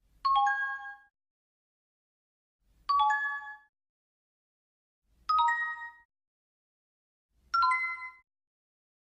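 A bright chime sound effect: a quick ding of a few ringing tones, struck four times about two seconds apart, each one a step higher in pitch than the last.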